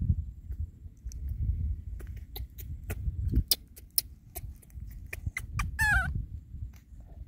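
Wind rumbling on the microphone, with scattered small clicks and rustles of handling. Near six seconds a baby monkey gives one short, wavering, high-pitched squeal.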